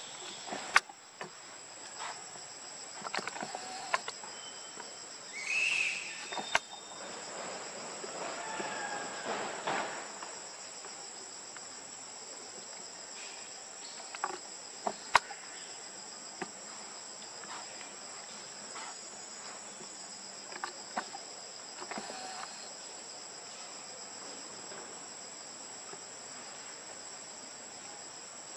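Steady high-pitched drone of an insect chorus, crickets or cicadas, with a few sharp clicks and a short high chirp about six seconds in.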